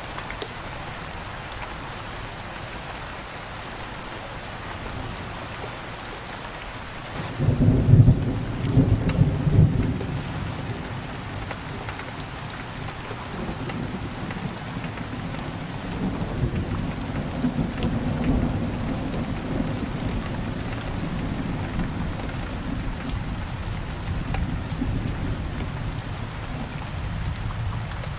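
Heavy rain on window glass, a steady even hiss. About seven seconds in, thunder breaks loudly for a few seconds, then keeps rolling as a low rumble under the rain.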